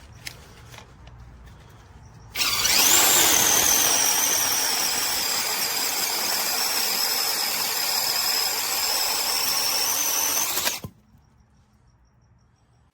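DocSmart 6-inch brushless cordless mini chainsaw switched on about two seconds in: a high whine that rises quickly as the chain spins up, then runs steadily for about eight seconds and cuts off suddenly. Faint clicks before it starts.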